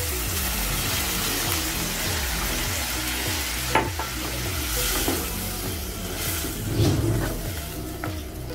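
Water poured into a hot non-stick pan of fried onions, tomatoes and spices, hissing and sizzling as it hits, then stirred with a plastic slotted spoon, with a few light knocks of the spoon against the pan. The sizzle dies down toward the end as the water settles in.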